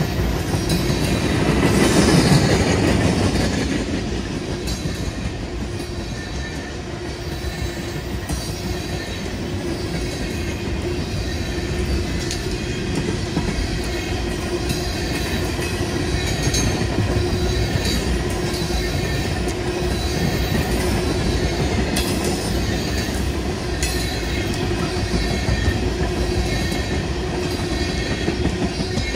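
Freight train of tank cars rolling past close by: a steady rumble of steel wheels on rail with a constant tone running through it, loudest about two seconds in. Occasional sharp clicks and clacks come from wheels crossing rail joints.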